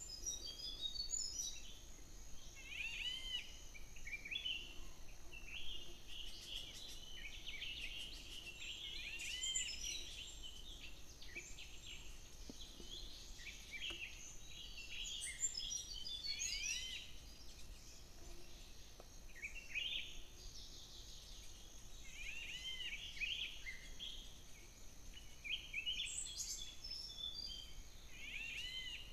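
Wild birds calling: many short, arched chirps and twitters from several birds, coming in clusters every few seconds over a faint, steady high hiss.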